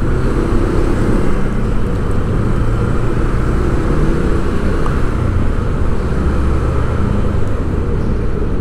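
Ride-along sound from a moving motorcycle: the engine running steadily under a low rumble of wind on the microphone.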